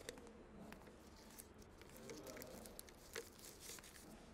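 Near silence: quiet room tone with faint rustling and a few small clicks.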